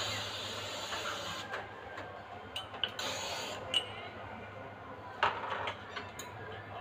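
Espresso machine steam wand hissing, cutting off about a second and a half in, followed by a few sharp clinks and knocks of cups and metal at the machine.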